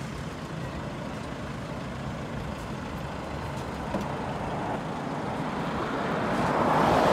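Road traffic noise: a steady hum of passing vehicles, with one vehicle approaching and growing louder near the end.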